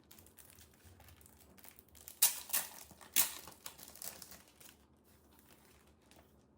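Packaging crinkling and rustling as it is handled and opened by hand, with a few sharp, louder crackles around the middle, dying away about five seconds in.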